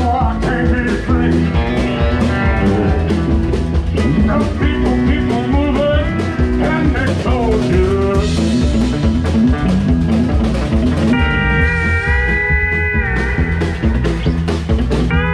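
Live country band playing an instrumental passage, with an Emmons Legrande II pedal steel guitar up front over electric guitar and drums. The steel's notes slide about halfway through, and it holds wavering chords in the last few seconds.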